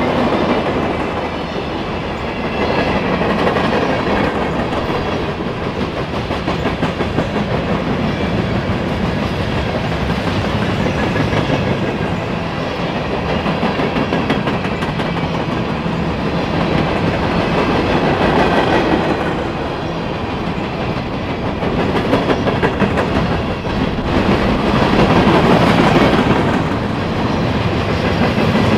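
Railroad cars of a passing train rolling along the track, a continuous wheel-and-rail noise that swells and eases every few seconds, with a faint steady ringing above it.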